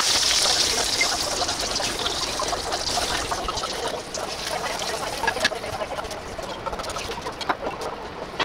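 Water running and trickling, thinning out about halfway through, followed by scattered light clicks and knocks.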